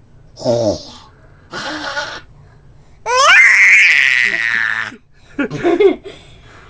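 Baby's vocal noises: a few short squawks and a breathy sound, then a long, loud, high-pitched squeal about three seconds in that sweeps up in pitch and holds for about two seconds, then one more short squawk.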